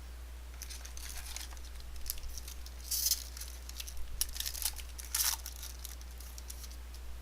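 Foil trading-card pack wrapper being torn open and crinkled in the hands, in a run of scratchy crackles with two louder rips about three and five seconds in. A steady low electrical hum sits underneath.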